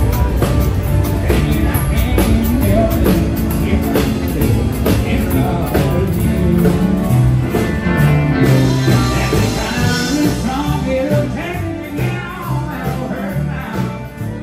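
Live band playing upbeat rock-and-roll or country music, with a steady drum beat, a moving bass line and a singing voice.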